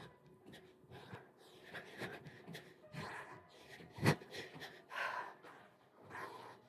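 A woman breathing hard mid-exercise, with soft thumps of bare feet landing on a rug as she jumps them in and out from a plank; the loudest thump comes about four seconds in.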